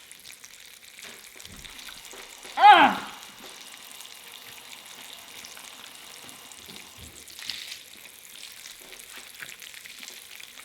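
Food sizzling and crackling steadily on a hot indoor electric grill. About two and a half seconds in, a person gives one short, loud, high-pitched exclamation.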